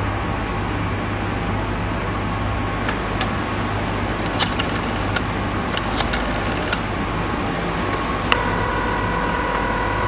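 Rotary-dial desk telephone being dialled: scattered sharp clicks over a steady low hum. About eight seconds in a louder click, then a steady tone on the line.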